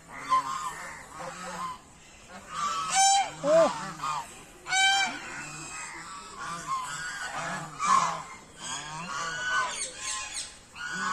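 A flock of birds calling over one another with many short, harsh, repeated calls, the loudest standing out about three to five seconds in and again near eight seconds.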